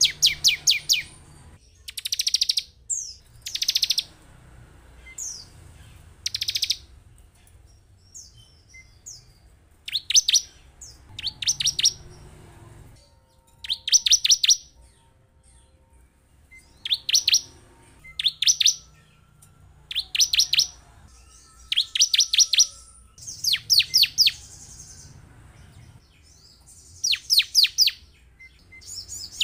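Ciblek (bar-winged prinia) song: short, rapid trills of sharp, high notes, each lasting under a second, repeated every one to three seconds with a few longer pauses, played as a lure track to set off other ciblek birds.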